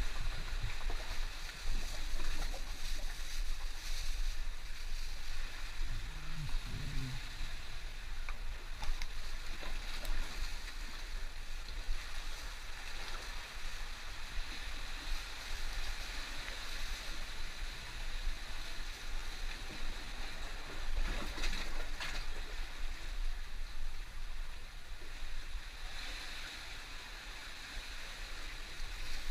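Wind buffeting the camera microphone over the steady wash of sea water on the rocks, with a few short rustles and knocks from handling.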